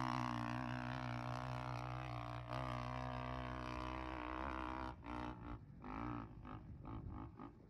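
Single-cylinder four-stroke 450 off-road engine held at high revs while climbing a sand dune, a steady droning note whose pitch sags slightly under the load. About five seconds in it fades and breaks up into uneven pulses as the machine gets far away.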